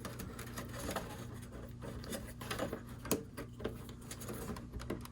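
Small clicks, taps and rubbing of hands working a plastic power-supply cable connector inside a NAS chassis, with a sharper click about three seconds in. The connector has not yet clipped home. A steady low hum runs underneath.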